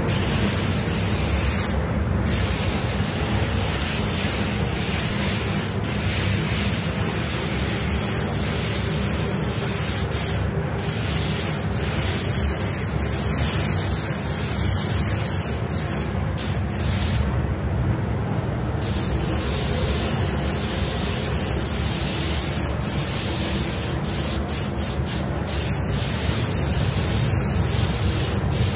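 Gravity-feed paint spray gun hissing steadily as it sprays paint onto a car bumper, with a few brief breaks in the hiss between passes.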